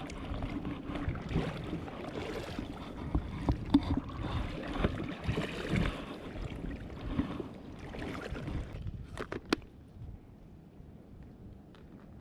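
Water sloshing and lapping close by, with a low rumble of wind on the microphone. It quietens about nine seconds in, where a few sharp clicks are heard.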